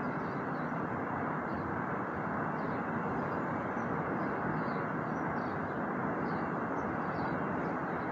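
Steady outdoor background noise: an even, unbroken rush with faint high chirps now and then.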